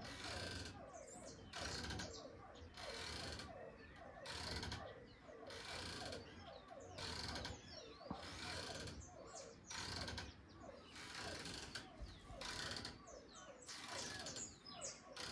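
Hammock swinging back and forth, its suspension creaking rhythmically about every one and a half seconds, with fast small ratchet-like clicks between the creaks.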